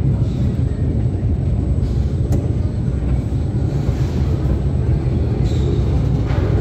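Steady low rumble of the Mail Rail's small electric passenger train running through its underground tunnel.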